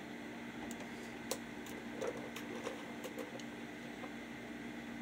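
A few faint, sharp clicks from wire strippers being worked on the chewed end of an electrical wire, over a steady low hum.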